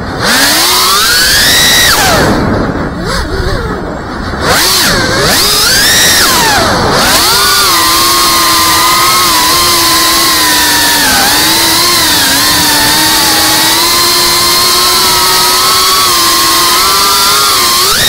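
Whine of a 3.5-inch FPV quadcopter's brushless motors and propellers as heard by the onboard camera, rising and falling in pitch with the throttle. It drops and surges several times in the first few seconds, then holds a fairly steady whine.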